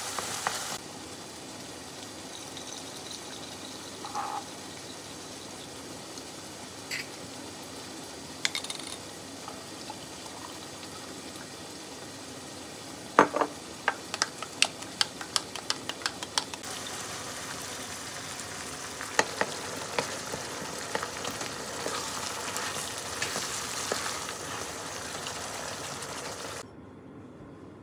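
Ground meat frying and sizzling in sauce in a pan, with a run of sharp clicks and taps from the utensils in the middle as it is stirred. The sizzle drops away near the end.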